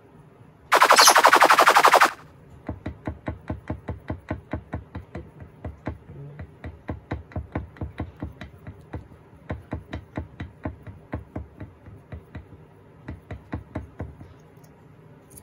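A loud, rapid rattle lasting about a second and a half, then steady rhythmic knocking, about four knocks a second, for most of the rest. The knocking is a wooden ladder rung bumping as a male lovebird in breeding condition rubs and wags his hips against it in a mating display.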